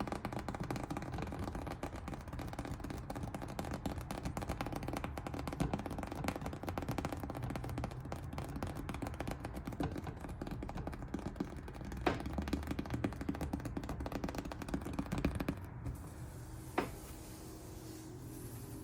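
Experimental noise piece: a dense rapid crackle of clicks over steady droning tones, with a sharp knock about twelve seconds in and another near the end.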